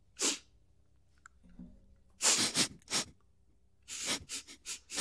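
A person sniffing and breathing hard into a close microphone: short, noisy bursts, with several in quick succession near the end.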